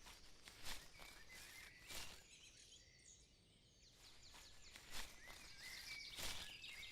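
Faint outdoor ambience with birds chirping now and then and a few soft knocks.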